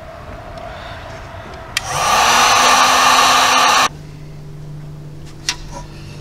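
Handheld electric heat gun switched on with a click, its fan spinning up and blowing steadily for about two seconds onto a wire repair, then cut off suddenly.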